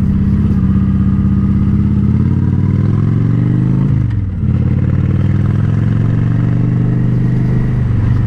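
Honda Shadow Spirit 750's V-twin running through a Cobra Streetrod Slashdown exhaust while riding. The engine note falls over a couple of seconds and dips briefly about four seconds in, as in a shift or roll-off, then the engine holds steady.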